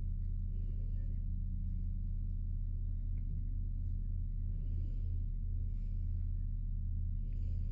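Black-and-white domestic shorthair cat purring steadily while stroked on the cheek and chin, a deep continuous rumble that swells and eases with each breath.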